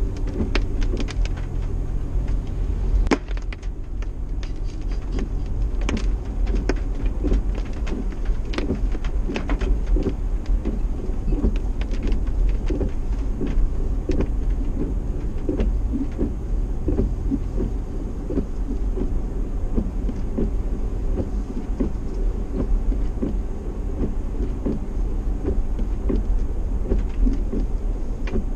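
Vehicle heard from inside the cabin while driving on a wet road: a steady low engine and road drone, with irregular ticks and taps of water drops hitting the windscreen and body as the wipers run.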